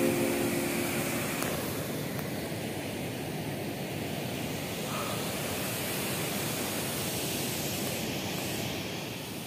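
Steady outdoor rushing noise with no clear pitch, after the last notes of background music fade out in the first second or two.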